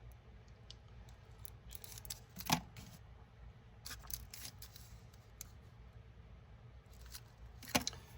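Paper-wrapped firecracker packs being handled: three bouts of crisp rustling and clicking, with a sharp click about two and a half seconds in and another near the end.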